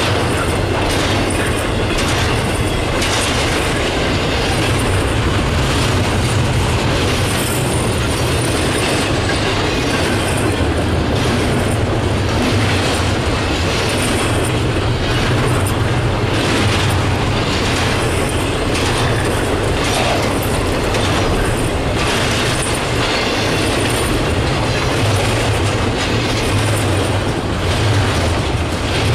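Intermodal freight train rolling past: a steady rumble of the cars with repeated clicking of wheels over rail joints.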